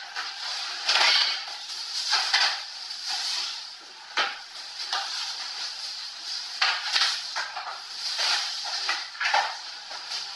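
Irregular knocks and clatters mixed with rustling, from furniture parts and packaging being handled and moved about during a dining-table unboxing.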